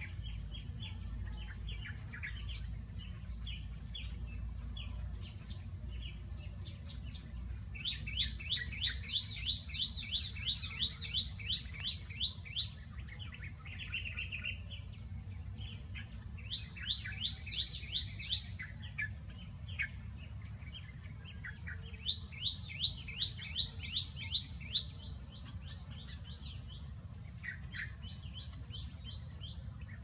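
Small songbird calling: three runs of rapid, evenly repeated sharp notes, about three a second, the first and longest starting about a quarter of the way in. Softer scattered chirps fill the gaps between the runs.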